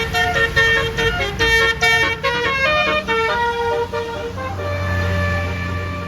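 Basuri multi-tone bus air horn (telolet) playing a fast tune, its notes changing every fraction of a second. About four and a half seconds in, the tune gives way to a steady low hum.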